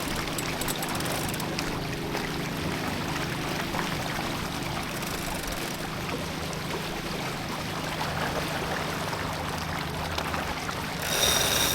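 Water rushing and splashing along the hull of a sailboat running under spinnaker, a steady wash of noise. Near the end it turns louder and hissier.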